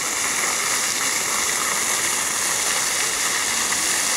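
Vertical jet of a ground-level plaza fountain, its water falling and splashing onto the wet paving in a steady rush.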